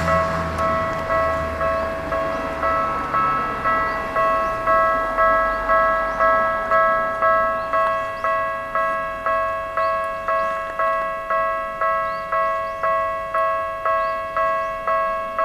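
Railway level-crossing warning bell clanging steadily, about two strikes a second, each with a ringing, multi-toned clang. A low rumble fades out under it over the first few seconds.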